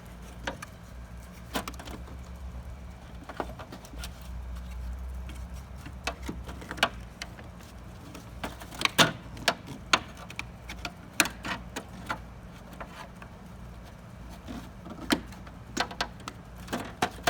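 Irregular clicks and knocks of a window air conditioner's fan blade and parts being handled and pushed onto the motor shaft, over a low steady hum.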